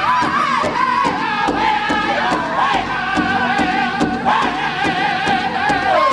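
Music: a group of voices singing a high, wavering chant over a steady drumbeat.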